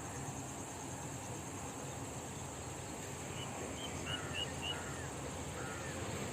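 Outdoor rural ambience with a steady high insect drone. About halfway through, a bird gives a quick run of short chirps, then a few lower calls.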